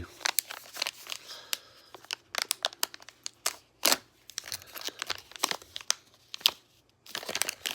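A sealed coin pack's wrapper being torn open and crinkled by hand: a run of sharp crackles and clicks.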